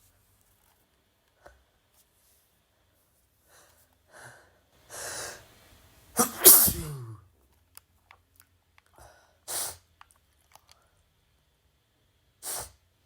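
A person sneezing once, about six seconds in: a couple of drawn-in breaths, then a sudden loud burst ending in a voiced cry that falls in pitch. Two short, sharp breaths follow, about three and six seconds later.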